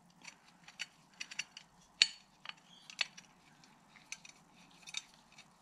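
Metal parts of a four-facet drill-grinding jig being handled and fitted together: scattered light metallic clinks and taps, the loudest a sharp knock about two seconds in.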